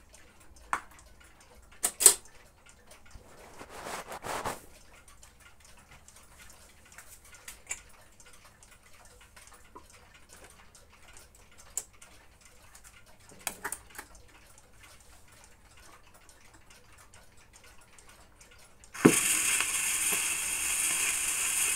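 Quiet handling of an RFT Ziphona Rubin 523 record player while records are changed: a few clicks from the tonearm and its rest, a brief brushing sound of a disc on the platter, and scattered faint ticks. Near the end the stylus drops onto the LP with a thump, and the lead-in groove's hiss and crackle come up through the speaker.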